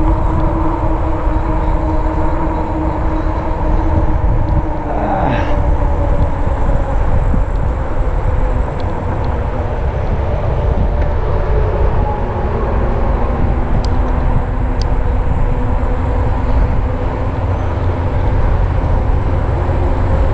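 RadRover fat-tire e-bike under way on pavement: a steady droning hum from its geared rear hub motor and knobby fat tyres, over a heavy rumble of wind on the microphone. The hum's pitch slides about five seconds in.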